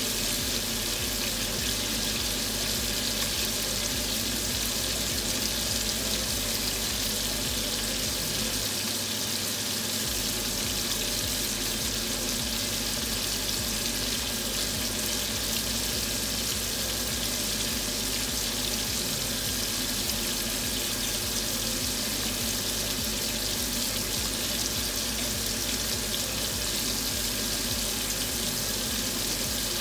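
Pork chops sizzling steadily in hot fat and pan juices in a frying pan.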